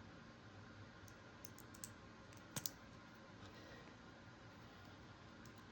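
Near silence with a few faint small clicks, the loudest a quick pair about two and a half seconds in: the re-pinned core of a Mul-T-Lock Junior lock sliding smoothly back into its housing.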